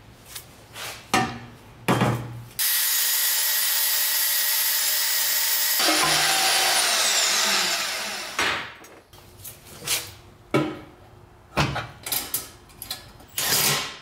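Portable band saw cutting through a metal exhaust pipe: a loud steady run of about three seconds, then the motor winds down with a falling whine. Clanks of the pipe being handled at the saw come before and after.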